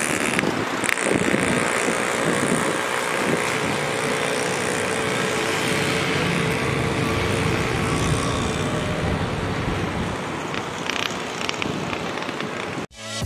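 Steady jet-engine roar of an Emirates twin-engine wide-body airliner climbing out after takeoff, with a faint steady whine in the middle of the roar; the sound cuts off suddenly near the end.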